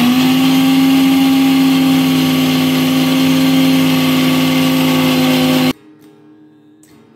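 Electric mixer grinder running at full speed, a steady motor whine over a loud whirring hiss, grinding soaked, cooked moong dal with a little water into a smooth paste. It stops abruptly a little under six seconds in.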